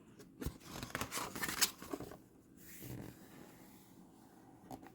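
Paper rustling as a picture book's page is turned: a run of quick rustles and scrapes from about half a second to two seconds in, then a softer rustle around three seconds.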